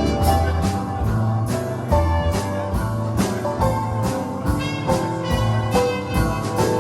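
Live band playing an instrumental passage: bass guitar notes, drums and guitar, with no singing.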